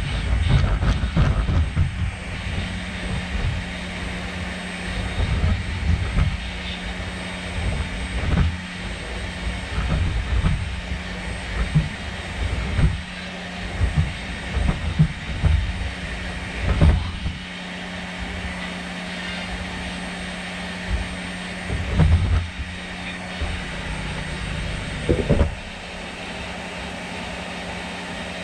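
Unitree GO2 robot dog's joint motors humming steadily, with irregular low thumps and knocks from its walking gait. The thumps stop about 25 seconds in, leaving the steady motor hum.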